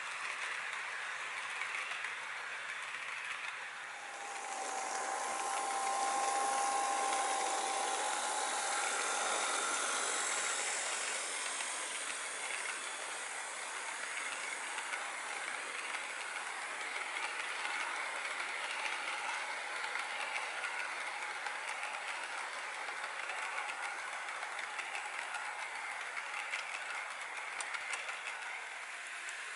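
HO-scale model freight cars rolling past on track: a steady rattling whir of small metal wheels on the rails. The sound shifts about four seconds in and gets a little louder, with a faint steady whine for several seconds.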